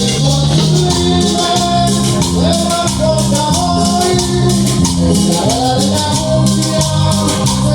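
Cumbia music played on an Akai MPX8 sample pad: a stepping bass line and a melody over an even, rattling shaker beat.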